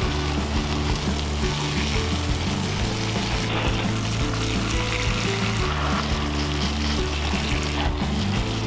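Steady hiss of water being sprinkled over freshly planted cuttings as they are watered, dropping away briefly twice. Background music plays underneath.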